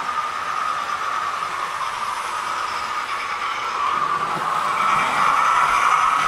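Model trains running on a large model railway layout: a steady rushing noise that grows louder about four seconds in.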